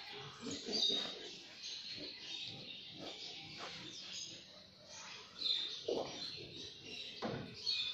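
Small birds chirping over and over, with knocks and scuffles of goat kids jostling on a concrete floor; the loudest knocks come near the end.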